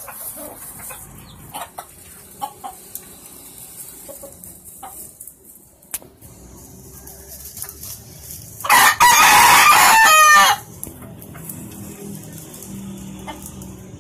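Game rooster crowing once, loud and close, about nine seconds in, the call lasting nearly two seconds and bending off at its end. A few light knocks and rustles come before it.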